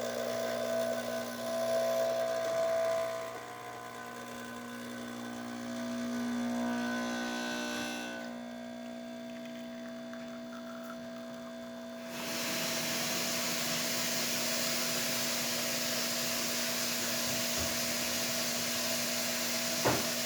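Pasquini espresso machine pulling a shot: the pump runs with a steady buzzing hum for about eight seconds, then eases off, and from about twelve seconds in a steady hiss takes over while a lower hum carries on underneath.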